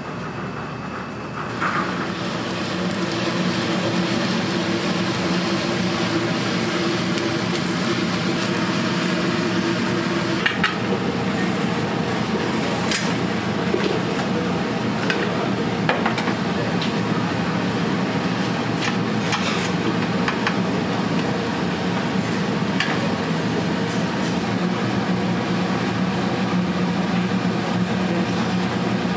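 Food sizzling on the heat in a restaurant kitchen, over a steady hum, with occasional short clinks. It grows louder about a second and a half in.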